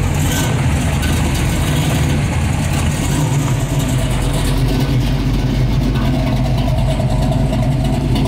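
A car engine idling steadily, a low, even running sound with no revving.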